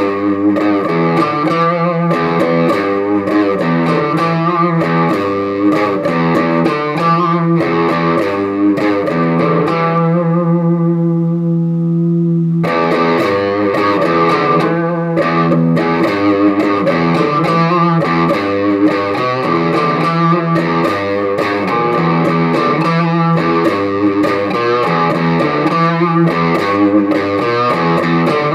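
Gibson Les Paul Custom electric guitar played through a Bugera V5 tube amp on crunch settings, a lightly overdriven tone. Picked notes and chords run throughout, with one chord held and left ringing for a couple of seconds about a third of the way in before the playing picks up again.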